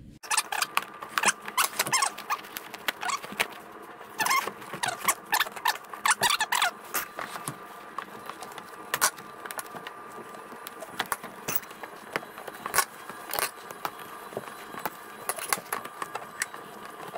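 Hands working plastic seat parts and the seat cover into place: short squeaks in the first half, as plastic rubs against plastic and fabric, and scattered clicks and taps throughout as clips and trim are pressed home.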